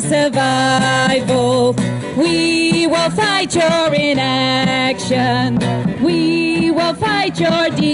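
A woman singing a slow song into a microphone, amplified through a small PA speaker, over strummed acoustic guitar chords.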